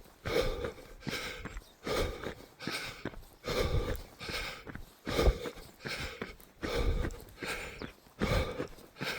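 A runner's hard, rhythmic breathing while running uphill, loud puffs about one and a half per second, with low thumps mixed in.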